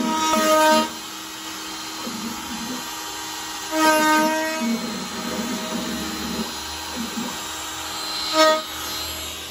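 DeWalt compact router on an X-Carve CNC running steadily as it carves a wooden panel. Three short, louder pitched tones with overtones sound over it, at the start, about four seconds in and near the end.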